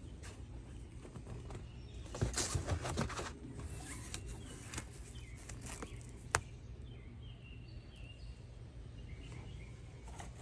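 Rustling and rubbing as the phone and hands brush over the felt surface of a portable jigsaw puzzle board, heaviest about two to three seconds in, with one sharp click about six seconds in. Faint short high chirps sound over a low steady hum in the second half.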